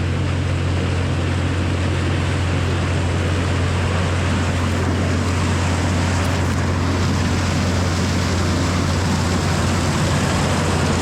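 A heavy engine running steadily: a constant low drone with an even rushing noise over it, typical of farm machinery at work during corn harvest.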